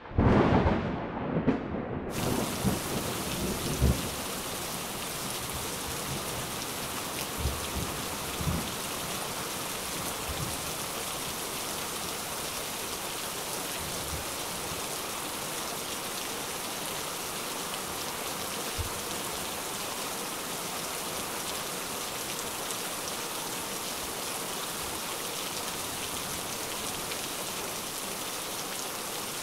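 Thunderstorm: a loud roll of thunder at the start, fading over about four seconds, with a few fainter distant rolls after it, over steady heavy rain hiss.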